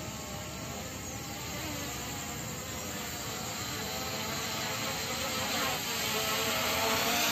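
P18 Pro drone's brushless motors and propellers whirring as it descends, growing steadily louder as it comes down.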